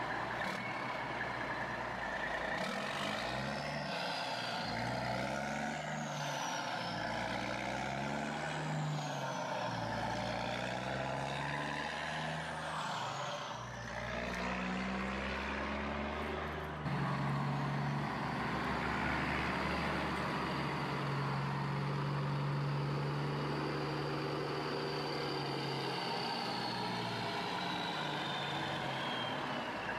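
Remote-control toy wheel loader working: a truck-like engine sound rising and falling in revs, with the thin whine of small electric motors gliding up and down. About halfway through it gets louder and settles into a steadier drone under a long high whine that slowly falls near the end.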